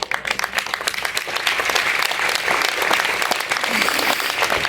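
Concert audience applauding and clapping, with some laughter and cheering mixed in, starting suddenly right after a spoken punchline.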